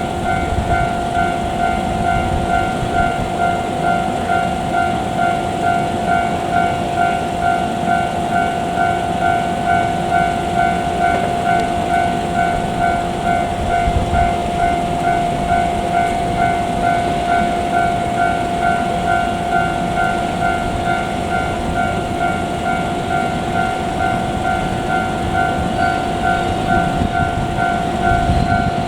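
Railway level-crossing warning bell ringing steadily, a ringing tone repeating at an even beat, with the low rumble of a train beneath it.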